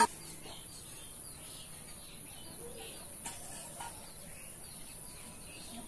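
Birds chirping faintly now and then over a low, even background hiss, with a sharp click at the very start and a brief knock about three seconds in.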